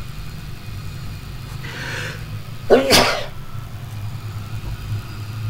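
A person sneezes once, about three seconds in, after a short breathy intake, over a steady low hum.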